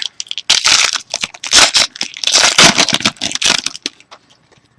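Trading card pack wrapper being torn open and crumpled, a loud, irregular crinkling and tearing that dies away near the end.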